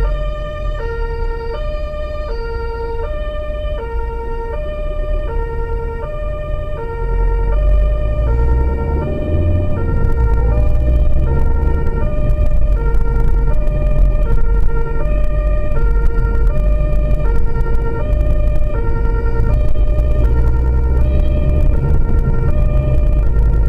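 German two-tone emergency vehicle horn (Martinshorn) alternating steadily between a high and a low note, heard from inside the vehicle. Engine and road noise rise about eight seconds in as the vehicle pulls away from the lights.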